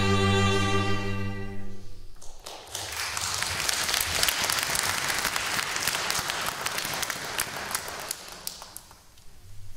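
A bowed-string piece ends on a held chord that dies away about two seconds in. Audience applause follows and fades out near the end.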